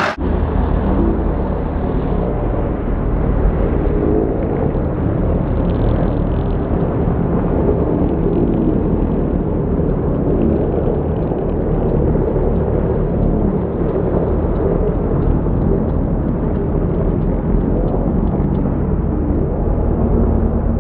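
Deep, steady, muffled rumble of a race car's engine and exhaust, with the high end cut away and no clear revs or bangs standing out.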